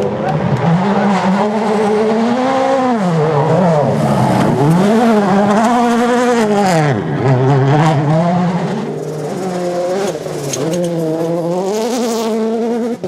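Rally car engine driven flat out, its pitch climbing and dropping again and again through gear changes and lifts for corners.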